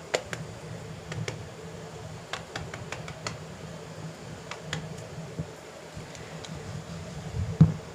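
Metal rolling pin rolling stuffed paratha dough on a marble countertop: a low rumble with scattered light clicks and taps, and one louder knock near the end.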